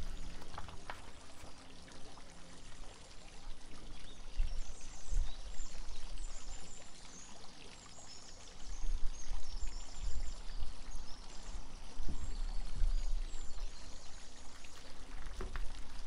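A garden water fountain trickling and splashing steadily, with birds chirping in short high notes through the middle. Low handling noise from magazine pages being turned near the microphone rises in the second half.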